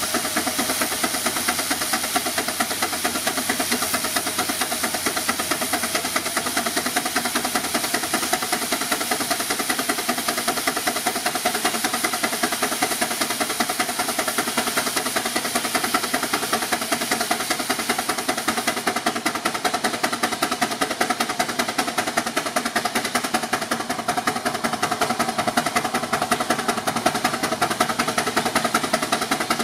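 6 hp Advance steam traction engine running belted to a dynamometer, its exhaust chuffing in a fast, even beat.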